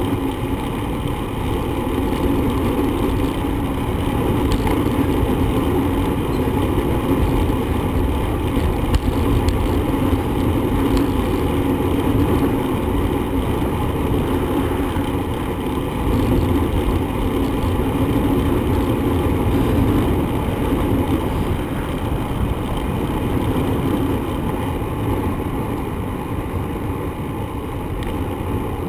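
Steady wind rush and rumble on the microphone, with road noise, from a bicycle being ridden.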